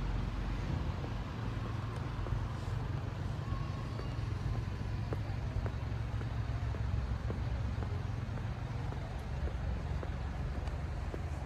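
City street ambience: a steady low rumble of road traffic, with faint footstep clicks on paving about every 0.7 seconds.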